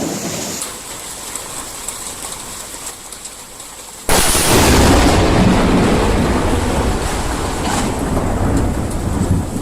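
Steady rain, then about four seconds in a sudden loud crack of close thunder that carries on as a heavy rumble.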